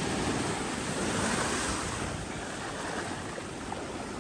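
Wind rushing over the microphone with sea waves washing, a steady noise that swells briefly about a second in.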